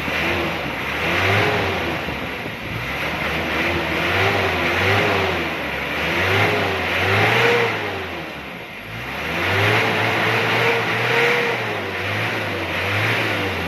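Mitsubishi Adventure's diesel engine being revved again and again, its pitch climbing and falling about every one to two seconds, with a brief drop about nine seconds in. The throttle is being blipped for an exhaust-smoke check after an oil additive has been mixed into the engine oil.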